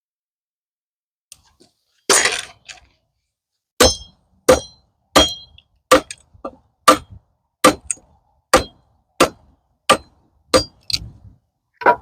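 Dry fallen pecan sticks being handled and sorted: a crunch of twigs about two seconds in, then about a dozen sharp woody cracks, roughly one every 0.7 seconds.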